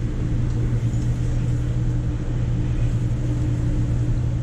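A 6.2 L LT1 V8 in a 6th-gen Camaro idling with a steady low hum.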